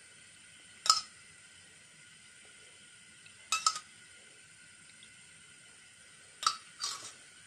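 Steel spoon clinking against a glass oil container as oil is ladled out: five light clinks, one about a second in, a quick pair in the middle and another pair near the end.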